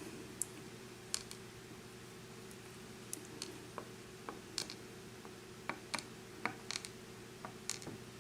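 Scattered light clicks and taps of small lock-cylinder parts being handled, over a steady low hum.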